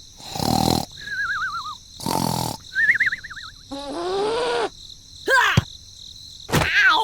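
Cartoon sound effects: two short whooshing bursts, each followed by a wobbling, warbling tone, then a pitched groan that rises and falls about four seconds in, and two sharp hits near the end.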